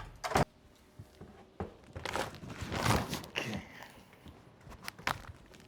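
Scattered handling noises: a few sharp knocks and clicks, with rustling in between.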